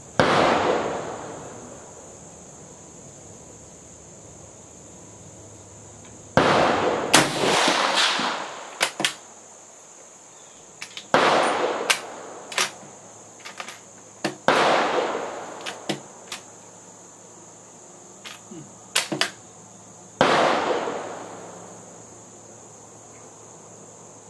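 Swedish M38 Mauser rifle in 6.5×55mm fired five times, several seconds apart, each shot echoing and dying away over a second or so under the covered firing line. Between shots the bolt is worked with short metallic clicks.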